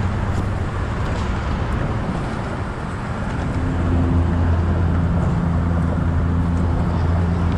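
Steady rumble of traffic on a bridge, with a low engine hum that grows louder about halfway through.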